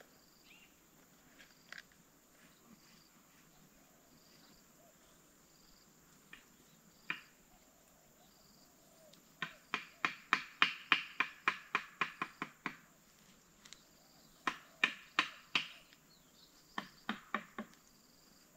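Runs of sharp clicks or taps, about four a second, in a longer run a little past the middle and shorter runs near the end, with a few single clicks before them.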